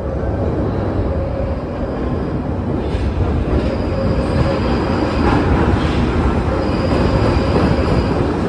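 London Underground Northern line 1995 Stock train running into a station platform out of the tunnel: a dense rumble of wheels on rail that grows louder as it pulls in, with a high-pitched squeal twice in the second half.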